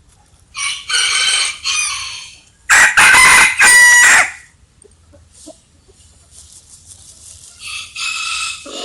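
Rooster crowing three times. A crow starts about half a second in, a much louder, close crow follows around three seconds in, and a quieter crow begins near the end.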